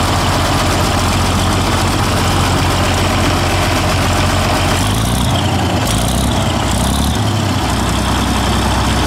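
Six-cylinder diesel tractor engine running steadily, heard from the driver's seat. Its engine note shifts briefly about five seconds in, then settles again.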